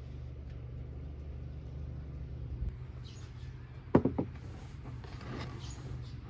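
A ceramic plate is set down on a wooden table about four seconds in, giving two or three sharp knocks close together, over a steady low hum.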